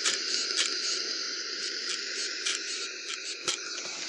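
Rowenta steam iron hissing steam while it is pressed and slid over a wool pocket on the ironing board, with scattered short scrapes and knocks of the iron on the fabric.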